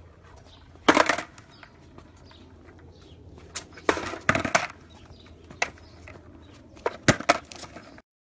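Skateboard knocking and clattering against pavement: a string of sharp knocks, one about a second in, a pair around four seconds, and a quick cluster near the end.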